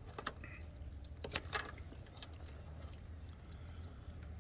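A few light clicks from wire connectors and plastic parts being handled and pushed into a brake light's plug, over a faint steady low hum.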